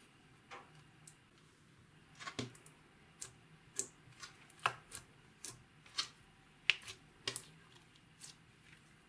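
Clear slime being worked by hand, giving a string of sharp, irregular sticky clicks and pops, roughly one or two a second.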